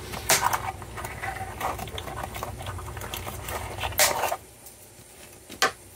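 Small spring snips clicking as they cut twine against a cardboard box, with the cardboard scraped and tapped while the hands work. A louder rustle of cardboard about four seconds in, then quieter handling and one sharp click near the end.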